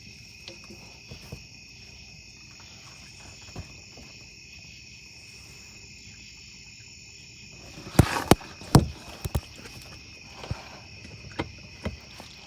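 Insects trilling steadily at a high pitch, with a short cluster of sharp knocks and clatters about eight seconds in.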